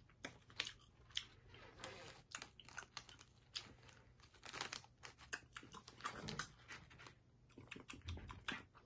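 Faint, irregular crackling and clicking close to the microphone as a packet of cider gummy candy is handled, opened and eaten.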